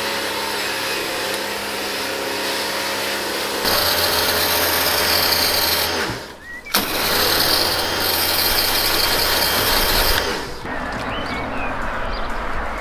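Pressure washer running and spraying water over a car, a steady motor hum under the hiss of the jet. The sound shifts abruptly, getting louder about four seconds in, dropping out briefly around six seconds and turning quieter near the end.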